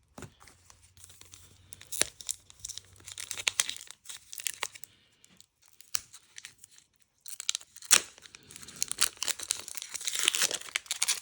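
Foil wrapper of a Pokémon card booster pack being torn open and crinkled, with the cards handled: sharp crackles in bursts, a lull about halfway through, busiest near the end.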